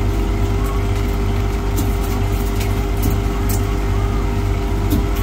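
Ice maker running with a steady low machine hum and the hiss of water streaming down its stainless-steel evaporator cylinder. A few faint ticks sound now and then.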